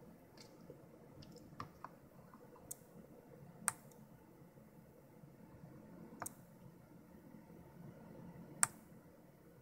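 Several short sharp clicks at uneven intervals, the loudest near the end: a push-button being pressed to fire the 555 single-shot clock pulse that steps the 65C02 CPU one cycle at a time.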